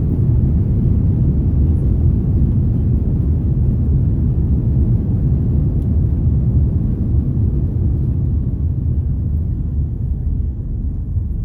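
Airliner cabin noise on the ground after touchdown: a steady low rumble of engines and wheels on the runway, easing slightly near the end.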